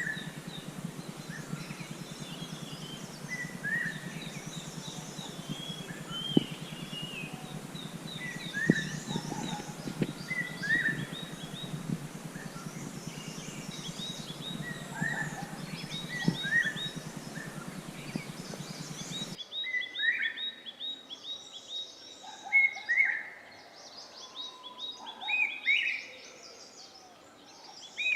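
Several small birds calling in short, repeated chirps and twitters, with a thin trill higher up. A low hum and hiss sits under the calls for the first two-thirds, then cuts off suddenly, and the calls stand out clearly after that.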